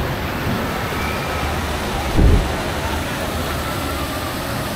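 Steady churn of a trackless water-ride boat moving across choppy lagoon water, with faint voices in the background. A brief low thump comes about two seconds in.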